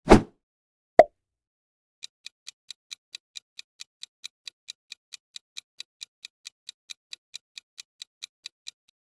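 Countdown-timer sound effect ticking evenly like a clock, about four or five ticks a second, while the answer time runs out. It is preceded by a short loud transition sound at the very start and a single pop about a second in.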